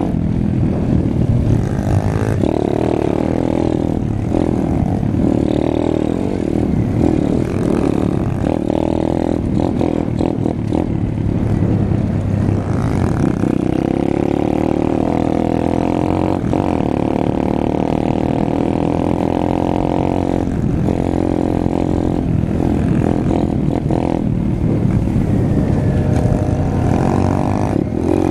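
Apollo RFZ pit bike engine running under the rider, its pitch rising and falling as the throttle is opened and eased off.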